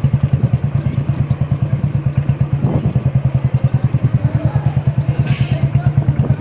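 Motorcycle engine running at low speed with an even pulsing beat of about ten a second. A brief rattle comes near the middle and a short hiss about a second before the end.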